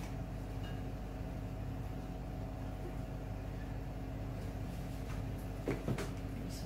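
Steady low machine hum of several fixed tones, like an appliance motor running. About six seconds in, a few light knocks as containers are set down on the table.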